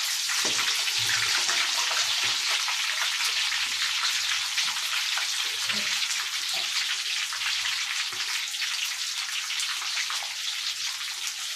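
Hot cooking oil in a wok sizzling and crackling steadily as breaded chicken wings deep-fry, during their second fry.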